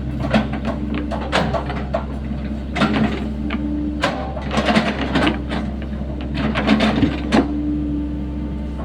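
Sany SY75C mini excavator's diesel engine running steadily under load, with a held hydraulic whine that swells a few times. Irregular knocks, clanks and scrapes of the bucket digging the trench.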